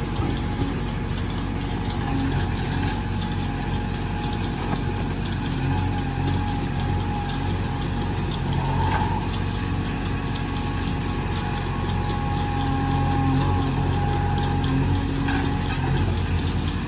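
JCB 3DX backhoe loader's diesel engine running steadily, with a thin high steady whine above the engine note.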